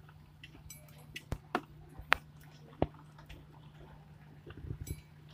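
Scattered light clicks and taps of hand tools and metal parts being handled at a scooter engine, a few in the first three seconds and a quick cluster near the end, over a steady low hum.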